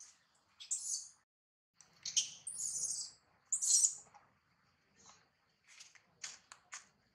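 Baby long-tailed macaque crying in a string of shrill, high-pitched screeches of uneven length, the loudest in the middle.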